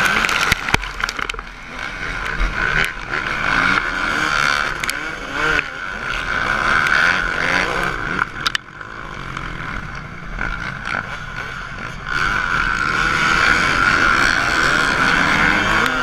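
Motocross dirt bike engine running hard under the rider, heard onboard, its pitch rising and falling several times as the throttle opens and closes through the gears, with other dirt bikes running close ahead. A few sharp knocks come in between.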